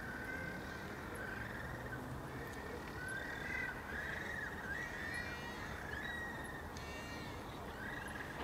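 A series of short, high chirping calls, some close together in the middle, over a steady hiss.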